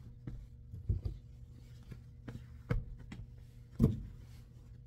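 Clothes hangers knocking and clicking as jackets and sweaters are handled, about six sharp knocks with the loudest near the end, over a steady low machine hum.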